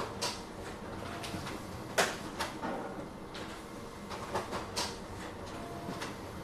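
Office background noise: scattered clicks and light knocks, the loudest about two seconds in, over a steady background hum.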